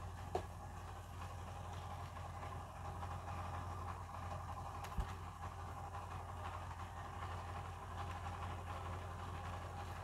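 Steady low background hum, with a couple of small clicks, one near the start and one about halfway, as fingers work the laptop's DC power jack and its cable into place.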